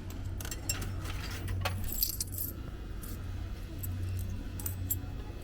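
Coins clinking in a hand and being fed into a ticket vending machine: a run of short metallic clinks and clicks over a steady low hum.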